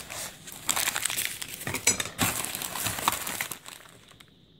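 Packing paper and plastic parts bags crinkling and rustling as a hand rummages through a shipping box. The rustling dies away near the end.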